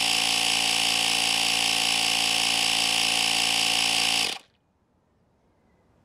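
Portable electric tire inflator's compressor running steadily with the tire at 50 psi, then cutting off suddenly about four seconds in.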